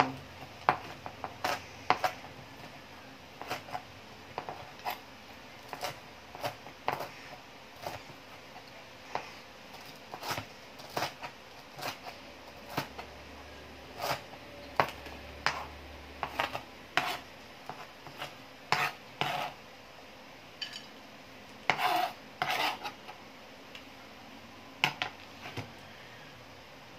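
Kitchen knife chopping cooked chicken skin on a plastic cutting board: irregular sharp knocks of the blade on the board, about one or two a second, thinning out near the end.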